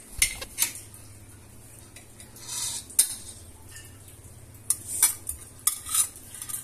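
A metal spatula and spoon clinking and scraping against a steel wok and a stainless steel food container as a fried egg is lifted out and dropped in. There is a short scrape about two and a half seconds in and a quick run of sharp clinks near the end.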